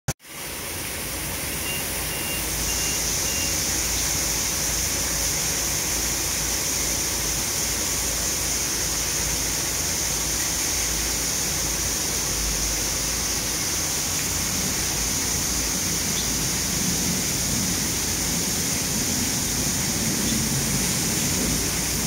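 Water from a man-made rock waterfall falling into a pool, a steady splashing rush.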